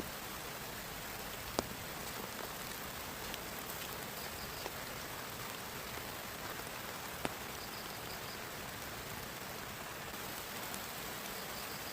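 Steady rain falling. Two sharper drop taps stand out, one about a second and a half in and one about seven seconds in.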